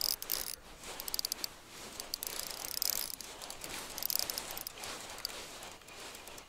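Spinning reel clicking and ratcheting in irregular spurts as a hooked pike pulls line against the drag.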